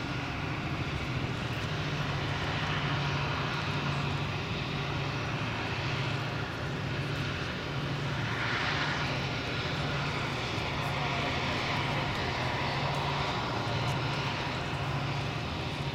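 Towboat's diesel engines pushing a heavy barge tow upstream: a steady low drone with a slow throb. The engines are laboring under the load.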